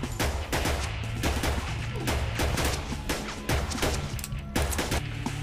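Rapid gunfire, about four shots a second in a sustained volley, over a low droning music bed.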